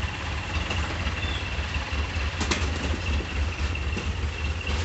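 Vehicle engine idling, a steady low rumble, with a single sharp knock about two and a half seconds in.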